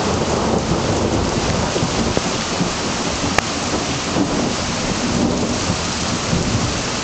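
Heavy rain pouring down steadily in a thunderstorm, with a low rumble of thunder underneath.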